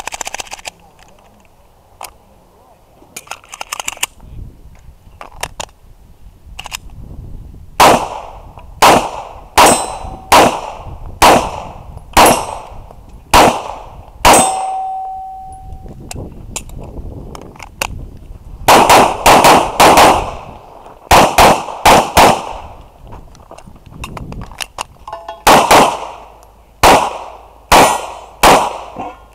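Heckler & Koch VP9 9mm pistol fired in quick pairs, the shooting starting about eight seconds in after some quiet handling clicks. A steel target rings out briefly after a hit about fourteen seconds in.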